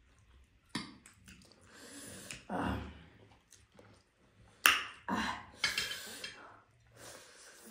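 Close-up eating noises over a meal of noodles: sharp clinks of utensils against dishes, a small one about a second in and a louder one about halfway, between short noisy bursts of slurping and chewing.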